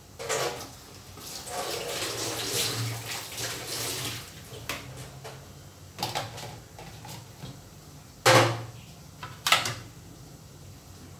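Kitchen tap water running into a sink as things are rinsed. Later come several sharp clatters of dishes knocking against the sink, the loudest two in the second half.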